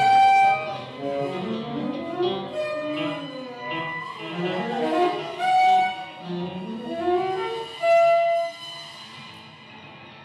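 Live contemporary ensemble music led by bowed strings (violins and cello), with held and sliding notes layered over a dense lower texture. The music thins out and grows quieter near the end.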